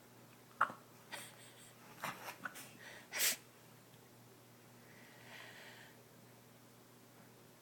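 A few short, sharp sniffs and snorts, then a single sneeze about three seconds in, followed by a faint breath.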